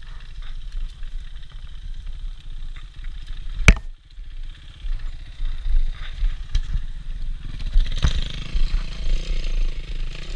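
Enduro motorcycle engine running at low revs, with a single sharp knock about three and a half seconds in. About eight seconds in the engine picks up revs and gets louder.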